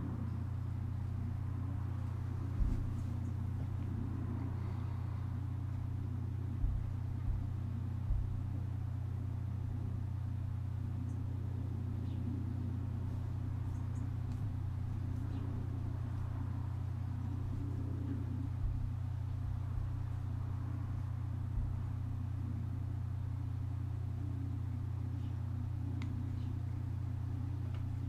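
Steady low background hum, with a few soft low knocks scattered through it.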